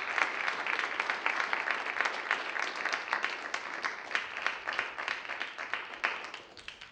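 Audience applauding; the clapping slowly tapers off and dies away near the end.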